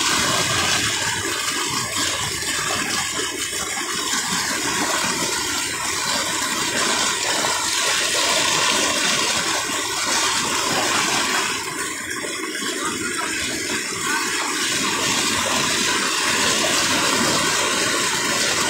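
River floodwater rushing steadily across a submerged road and spilling over its edge, the river overflowing its banks in flood.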